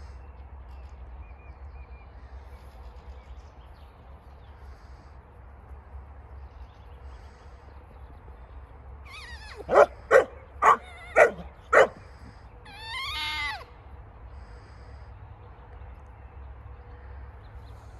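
A canine barking five times in quick succession, about two barks a second, then giving one longer call that wavers in pitch.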